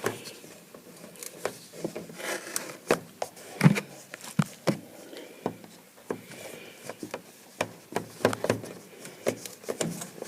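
Hands pressing a rope of duct seal putty around a hole in sheet-metal ductwork: irregular light taps and knocks with rubbing and scraping between them.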